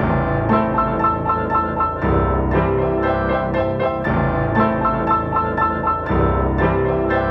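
Instrumental music: a keyboard-led track with sustained bass notes and a short phrase that repeats about every two seconds.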